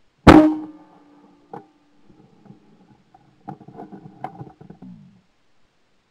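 A single shotgun shot about a quarter-second in, dying away with a short ringing. A knock follows, then from about three and a half seconds a run of metallic clicks and rattles as the gun is handled.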